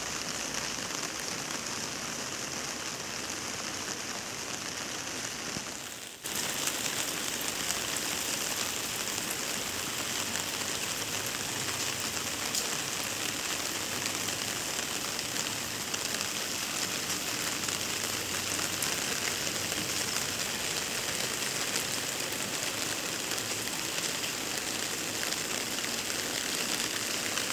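Steady rain falling, an even hiss of drops. It dips briefly about six seconds in, then carries on a little louder.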